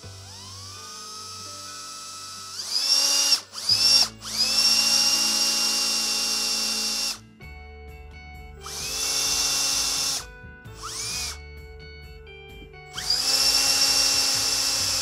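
Cordless drill boring small pilot holes into pronghorn antelope horn, run in repeated trigger pulls: each one a whine that rises quickly to a steady high pitch, the longest lasting about three seconds.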